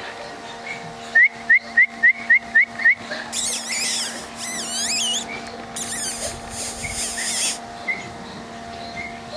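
High whistling: a quick run of seven short rising chirps about a second in, then two longer stretches of loud, wavering high squeaks and warbles, each lasting about two seconds.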